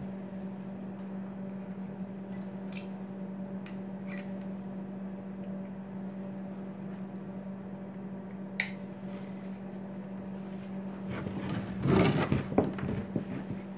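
A steady low electrical hum with a few light clicks as the electrode is handled in its holder. About eleven seconds in comes a loud, rough burst of scratching and tapping as the stick-welding rod is scraped on the sawdust-covered wood to strike an arc. No arc catches, because the ground clamp was never connected.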